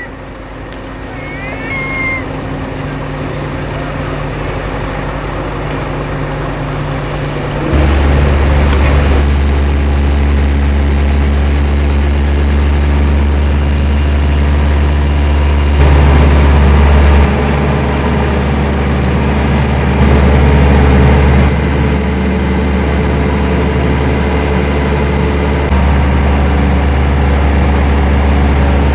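Boat engine running steadily, heard from on board. It becomes much louder and deeper about eight seconds in, as if throttled up.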